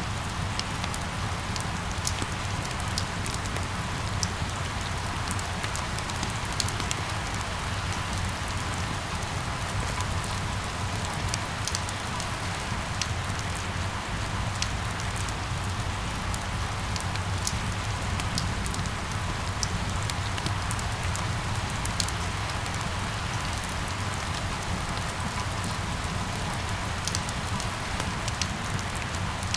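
Steady rain falling on hard surfaces, with many small drop ticks over a constant hiss and a low, steady rumble underneath.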